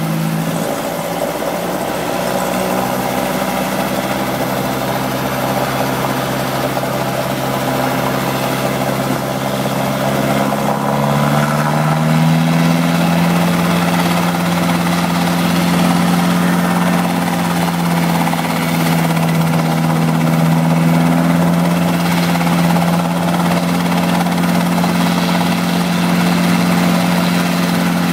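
Robinson R22 helicopter running on the ground, its piston engine and turning rotor making a steady hum. The pitch drops just after the start, holds lower, then about eleven seconds in rises to a higher steady pitch and grows a little louder as the revs come up.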